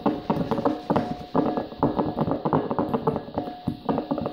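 Background music of quick plucked notes with a few held tones.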